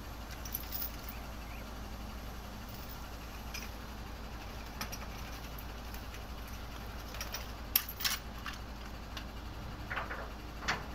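Heavy truck idling, a low steady rumble, with scattered sharp clicks and knocks, the loudest about eight seconds in.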